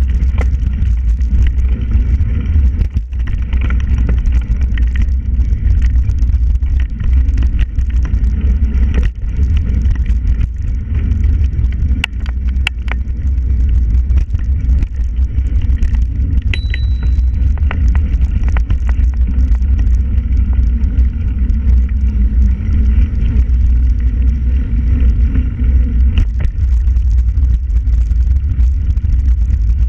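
Steady low rumble of wind on the microphone with road noise and rattle from a bicycle riding along a canal towpath. A few sharp clicks come about twelve seconds in.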